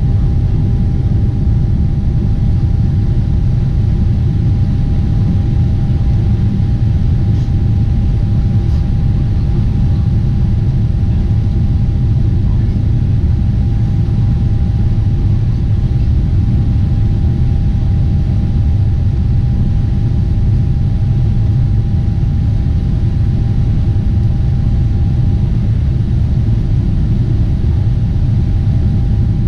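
Steady low rumble of a Boeing 747-8 airliner in flight, heard inside the cabin, with a thin steady whine above it.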